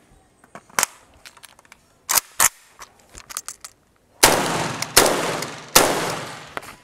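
An AK-pattern rifle is handled with a few light metallic clicks, then fired three times, one shot roughly every three quarters of a second. Each loud shot trails off in a long echo.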